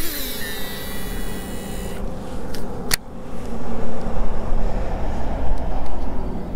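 Baitcasting reel spool whirring high as a lure is cast, stopping abruptly about two seconds in, followed by two sharp clicks. A steady low rumble runs underneath.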